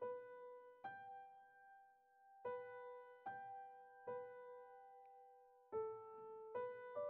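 Soft, slow background piano music: single notes struck about once a second and left to ring and fade.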